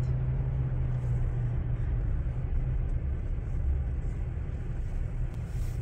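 Car cabin noise while driving: a steady low engine hum with an even rumble of road noise.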